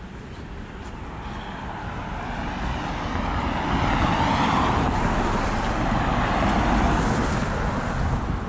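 A car passing on a wet road: the tyre hiss swells over a few seconds, peaks midway and then fades.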